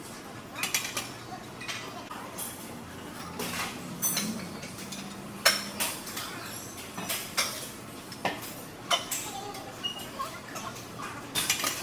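Irregular sharp clinks and clanks of metal gym weights knocking together, a dozen or so scattered through, over the gym's steady background hum.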